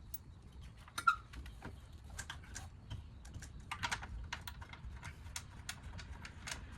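Scattered, irregular light clicks and taps, with a sharper knock about a second in: car parts and hand tools being handled during reassembly of the lower radiator support.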